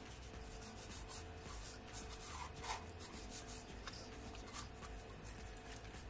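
Hands rubbing dry seasoning into the skin of whole raw parrotfish in a stainless steel bowl: faint, irregular scratchy rubbing strokes, one a little louder about halfway through.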